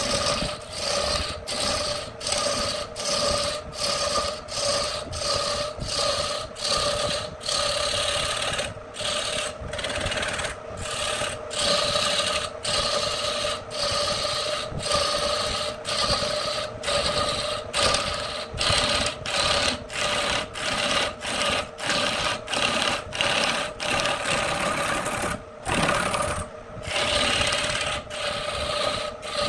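A turning gouge cutting into a spinning wooden log blank on an electric wood lathe, sending off shavings in a scraping rush. The rush comes in repeated strokes, about one and a half a second, over the steady hum of the lathe's motor.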